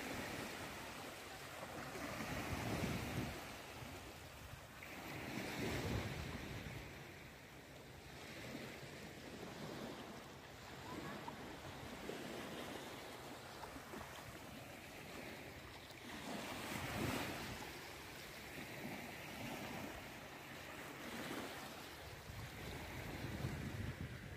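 Sea waves surging and washing in, the noise swelling and ebbing every few seconds, with wind on the microphone.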